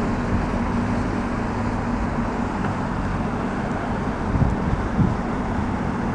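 Steady low boat-engine drone with rushing wind and water noise, and two brief bumps near the end.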